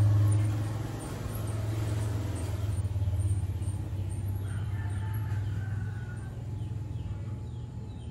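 A steady low hum runs throughout, with faint short bird calls coming in from about halfway.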